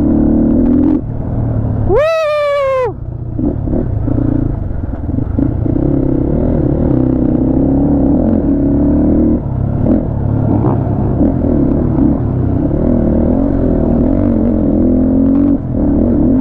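HJ250 motorcycle engine running under load on a rough off-road trail, the revs rising and easing with a few short drops. About two seconds in, a loud pitched call falling slightly in pitch cuts over it for just under a second.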